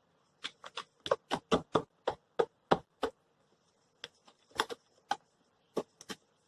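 A mixing utensil knocking against the side of a cup or container while a milky mixture is stirred: quick, irregular sharp taps in two runs, with a short pause between them about three seconds in.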